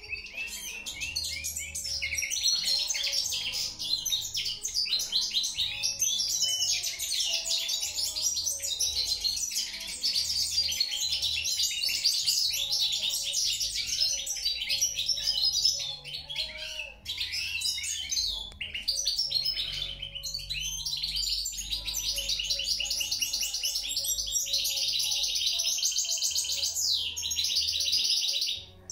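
European goldfinch singing: a long, fast run of high-pitched twittering song, with a short break about halfway through, stopping just before the end.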